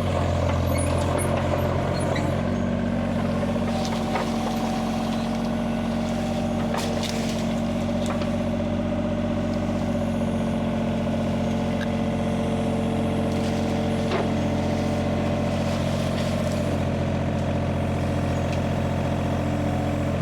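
Hitachi mini excavator's diesel engine running steadily, its note shifting about two seconds in, with a few short knocks along the way.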